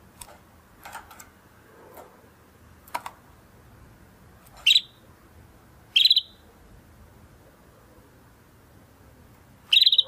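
Domestic canary giving short, separate chirping calls with pauses between, not continuous song. Faint notes come about once a second at first, then three louder upward-sweeping chirps come a second or more apart in the second half.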